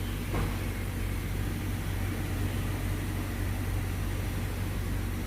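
Mazda CX-5 Skyactiv engine idling steadily with a constant low hum, and a brief falling sweep about half a second in.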